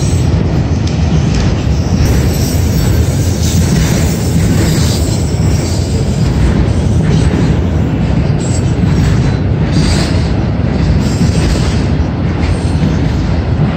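Autorack freight cars rolling past, a loud steady rumble of steel wheels on rail.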